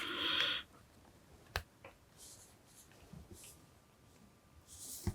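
Small handling noises as a tiny surface-mount component is pushed out of its packet: a short scratchy scrape at the start, a sharp click about one and a half seconds in, faint scrapes, and another click at the end.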